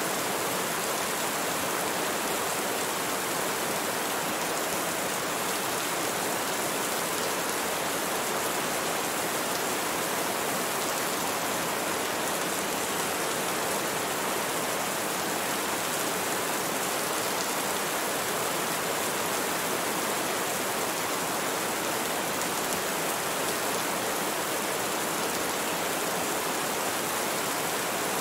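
Steady rain: an even, unbroken hiss that holds the same level throughout.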